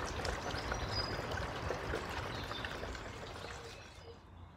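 Water pouring and trickling into a half-filled rubber-lined pond as it is pumped in through a hose, a steady splashing that dies away near the end.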